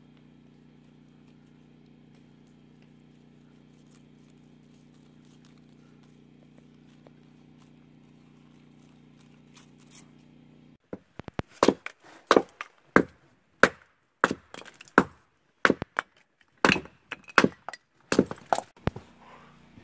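Faint steady low hum, then, about eleven seconds in, a run of loud sharp wooden knocks, about one or two a second: a wooden baton striking the back of a blade set into a chopping round, batoning kindling.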